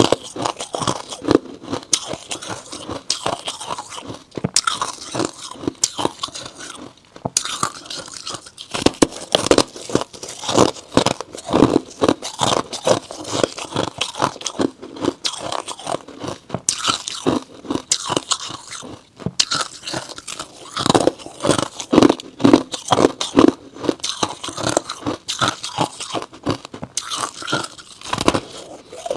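Close-miked freezer frost crunching as it is bitten and chewed: a dense, rapid run of crisp crunches with no pause.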